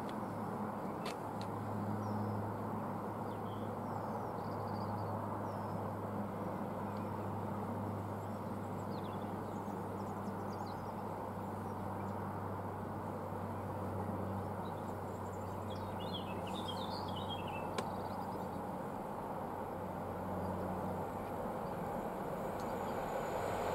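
Freightliner Class 66 diesel locomotive (two-stroke V12) heard at a distance as it approaches with a container train: a steady low engine drone that grows a little louder near the end. Birds chirp briefly about two-thirds of the way through.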